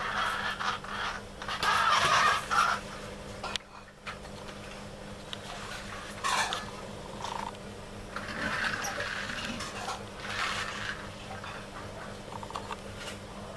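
Plastic toy trucks pushed by hand across a tiled floor, their wheels and bodies rattling and scraping in several separate bursts, over a steady low hum.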